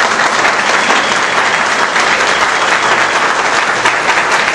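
A room full of people applauding: dense, steady clapping that holds at an even level.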